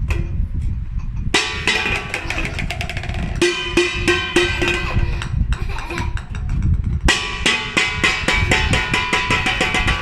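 Music with a drum kit and percussion, full of quick, sharp strokes.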